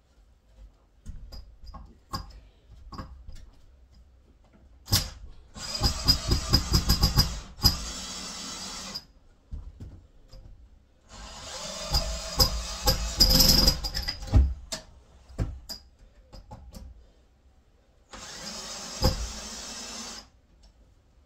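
Power drill running in three bursts, the first about four seconds long, the second about three and the last about two, with scattered knocks of timber between them.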